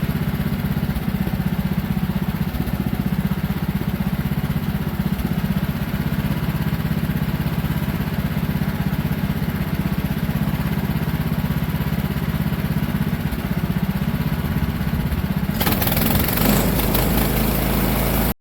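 Engine of a Woodland Mills HM126 portable band sawmill running steadily at speed while it makes a light shaving cut through clamped walnut boards. A louder, hissing noise joins near the end, and everything cuts off suddenly.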